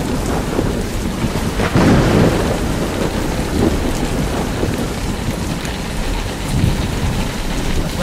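Very heavy rain drumming on the roof and windshield of a moving car, heard from inside the cabin as a dense, steady rush with a deep rumble underneath.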